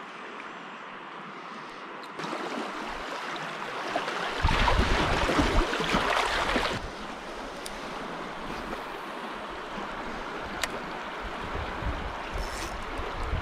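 Rushing river water, a steady hiss that steps up about two seconds in and swells louder with a low rumble for a couple of seconds near the middle before settling back.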